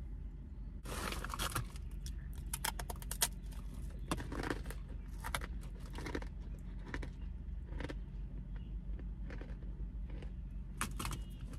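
A plastic snack bag crinkling and rustling in irregular crackly bursts, densest about a second in. A steady low hum runs underneath.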